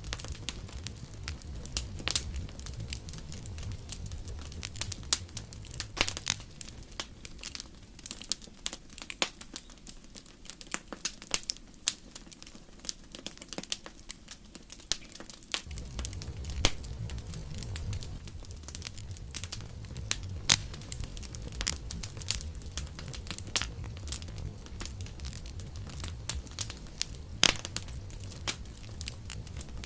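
Campfire crackling, with frequent sharp pops and snaps over a low rumble. The rumble falls away for several seconds around the middle, then comes back.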